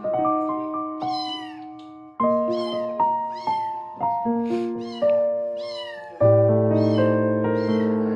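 Scottish Fold kitten mewing repeatedly in short, high-pitched mews, about one or two a second, over background music of light plucked notes.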